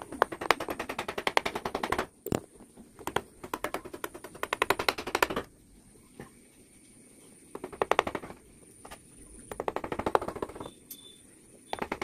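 Quick runs of sharp taps from a thin metal punch tool being worked into the wood of a carved owl's eye, one to two seconds at a time with short pauses and a few single taps between.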